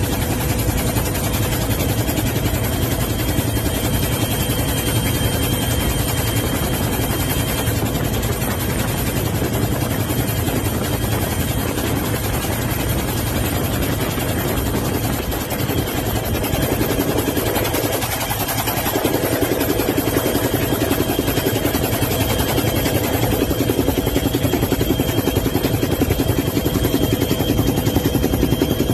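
Helicopter heard from inside the cabin: a loud, steady drone of rotor and engine with a constant high whine.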